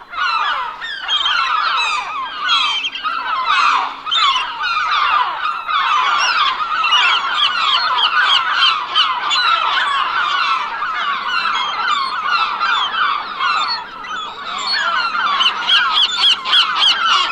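A flock of gulls calling continuously, many short, overlapping cries at once.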